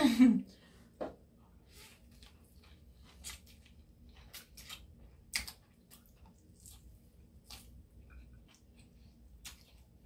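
Close-up eating sounds from a fresh spring roll with rice noodles: soft, wet chewing and lip smacks, heard as scattered short clicks at irregular intervals.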